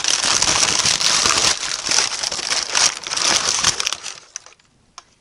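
Brown kraft packing paper crumpling and rustling as a part is pulled out of its cardboard box. The rustling dies away about four seconds in, followed by a single small click.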